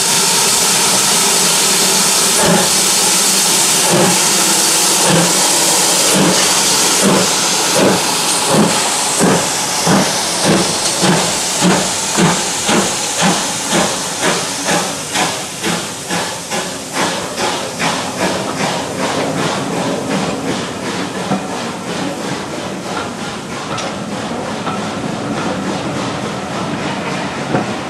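GWR 94xx pannier tank locomotive No. 9466 pulling away from a standstill. It starts with a loud hiss of steam, then chuffs in a regular beat that quickens and fades as it gets under way. Near the end its coaches roll past with wheels clicking over the rail joints.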